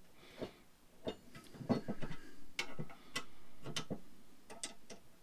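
Hand ratchet and socket snugging down bolts on a metal bracket: irregular, sharp clicks of the ratchet as the handle is worked back and forth.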